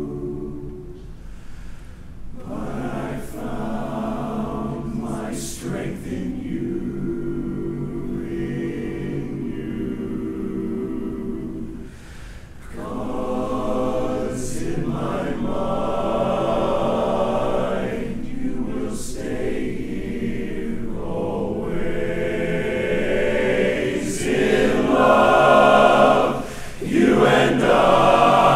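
Men's barbershop chorus singing a cappella in close four-part harmony. The singing comes in phrases with short breaks between them and grows louder toward the end.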